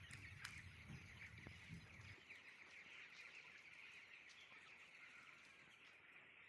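Faint, continuous peeping of a flock of broiler chicks, many small overlapping chirps.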